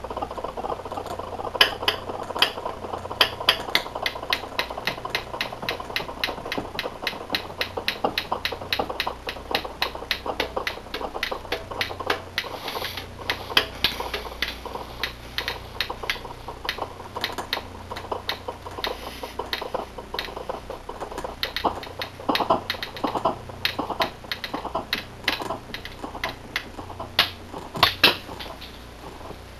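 Rapid, irregular sharp clicks and ticks, several a second, over a faint low steady hum.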